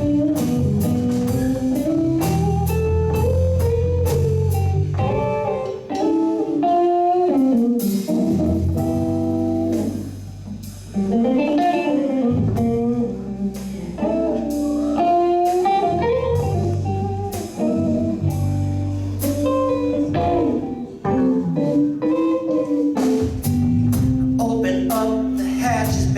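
Live blues band playing an instrumental passage: a guitar lead with bent, sliding notes over bass and drums.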